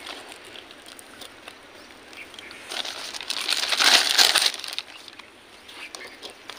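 Thin plastic carry bag rustling and crinkling as it is handled and steamed rice-flour dough is put into it, loudest for a second or two in the middle.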